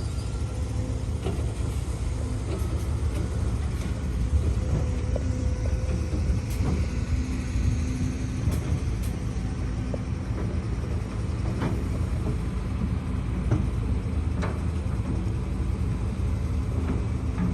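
HIDROMEK HMK230LC excavator's diesel engine running steadily under load, a low rumble with a faint steady hum, with scattered short knocks and clanks throughout.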